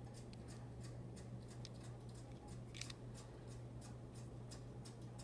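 Faint clicks and ticks of small diecast toy cars being handled and turned over, with one slightly louder click just before three seconds in, over a steady low hum.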